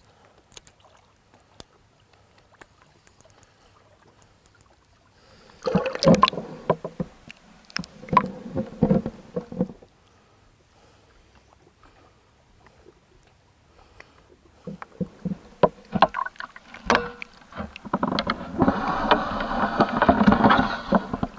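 Water splashing and sloshing in irregular bursts as a hooked tench thrashes at the surface and is brought into a landing net. There are a few quiet seconds at first, then splashing in two spells, louder and denser near the end during the netting.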